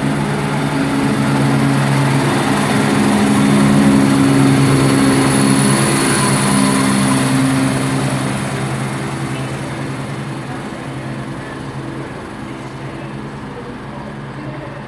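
Class 170 Turbostar diesel multiple unit departing under power, its underfloor diesel engines running with a steady low drone. It grows louder to a peak about four to six seconds in, with a brief high whine, then fades slowly as the train pulls away.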